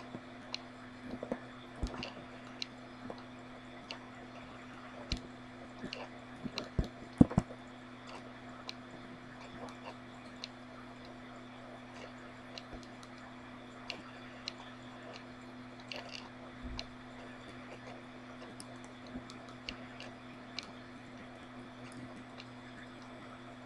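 Scattered computer mouse clicks, a few close together, over a steady low hum and faint hiss.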